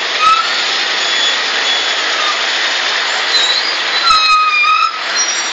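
Steady din of traffic stuck in a jam: heavy lorry engines running close by. A vehicle horn sounds once for just under a second near the end.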